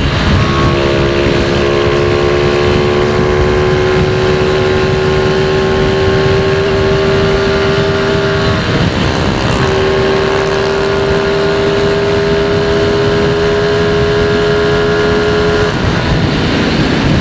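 Honda Wave 100's single-cylinder four-stroke engine running hard at high revs under heavy wind rush, its note climbing slowly as the bike gathers speed. The engine note breaks off for about a second midway, then comes back and climbs again.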